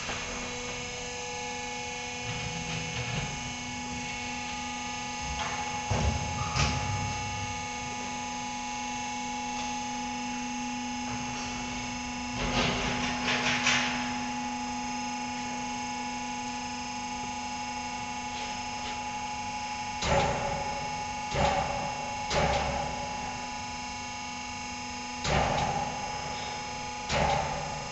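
Electro-hydraulic power unit of a large scissor lift table running steadily as the table rises: a 4 kW, 380 V electric motor driving the hydraulic pump, giving a steady hum. Several short knocks and clatters come through it, once about six seconds in, a cluster near the middle and a run of them in the last third.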